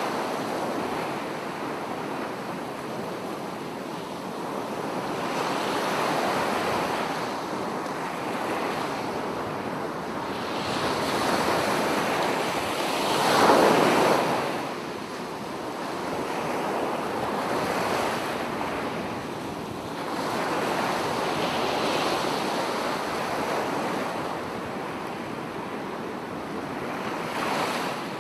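Sea surf breaking and washing up a flat sandy beach. The waves swell and fall back every few seconds, and the loudest comes about halfway through.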